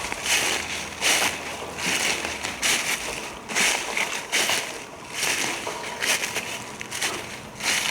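Footsteps crunching through a thick layer of dry dead leaves on the forest floor, a steady walking rhythm of a little over one loud step a second.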